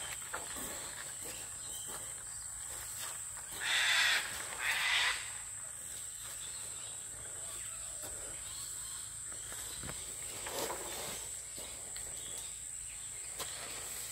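Steady high-pitched insect buzz, with two short hissing bursts about four and five seconds in and a fainter one near ten seconds.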